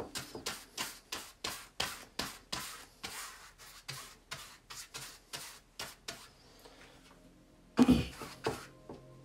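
Stiff paintbrush scrubbing acrylic paint onto a stretched canvas in short rubbing strokes, about three a second. The strokes stop about six and a half seconds in, then a louder knock and a few more strokes come near the end.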